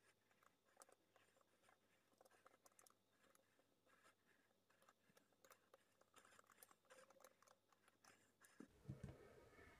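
Near silence: room tone with faint scattered light clicks and taps from hands handling a painted round panel. A faint low hum comes in near the end.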